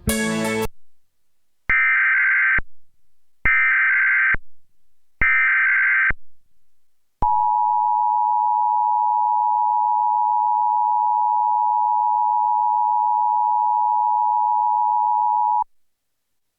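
Emergency Alert System test tones: three short bursts of SAME digital header data, each a harsh warbling buzz about a second long, followed by the two-tone EAS attention signal held steady for about eight seconds before cutting off abruptly. The programme sound is cut off right at the start.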